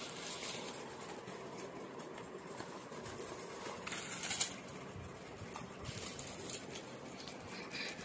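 Rustling and scraping of a cardboard box and plastic packaging being handled and opened, with a sharper crackle about four and a half seconds in.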